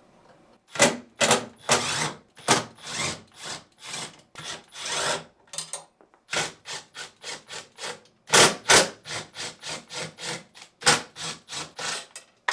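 3/8-inch nut driver backing screws out of a refrigerator's freezer panel: a series of short, irregular scraping, rasping strokes as the driver is turned, with a brief pause about six seconds in.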